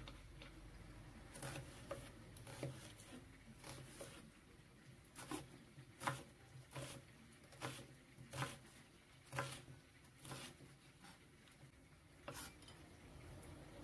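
A chef's knife chopping an onion on a wooden cutting board: faint, unhurried knocks of the blade on the board, about one a second, stopping shortly before the end.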